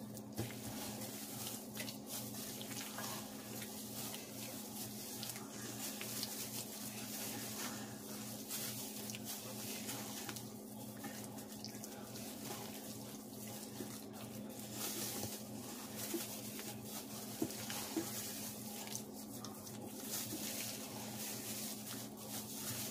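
Spatula folding and scraping thick, wet batter with cherries in a stainless steel bowl: soft irregular squelching, over a steady low hum.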